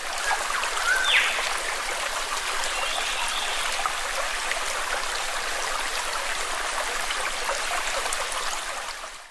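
Steady sound of running water, like a flowing stream, fading in at the start and out near the end, with a short rising chirp about a second in.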